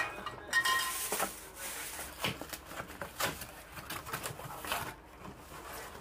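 Dishes and cutlery clattering in a kitchen: irregular clinks and knocks, with one ringing clink about half a second in, thinning out near the end.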